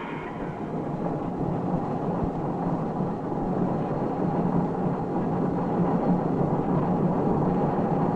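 Angels Flight funicular railway car running on its tracks: a steady mechanical rumble with a low hum.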